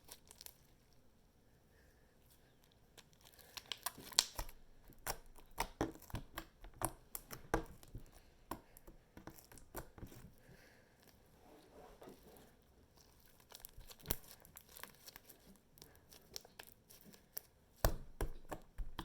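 Homemade glue slime being stretched, squeezed and clumped by hand, making quick runs of small sticky pops and crackles, with quieter pauses in between.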